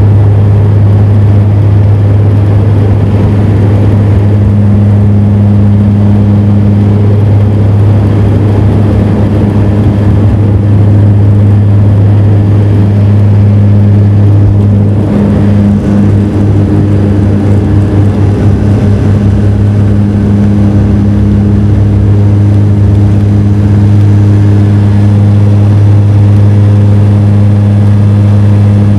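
Bombardier Dash 8 Q400 turboprop at takeoff power, heard inside the cabin beside the six-bladed propeller: a loud, steady drone with a strong low hum. The sound wavers briefly about halfway through as the aircraft rolls down the runway and climbs away.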